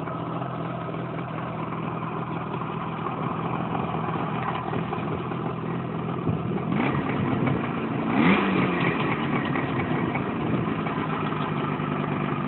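IZh Jupiter 5 two-cylinder two-stroke motorcycle engine idling through its exhaust, freshly overhauled and running evenly, with the revs rising and falling briefly about two-thirds of the way in.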